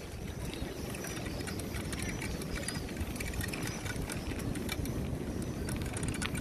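Riding a folding bike along a village road: steady low wind noise on the microphone and tyre noise, with frequent small rattling clicks from the bike.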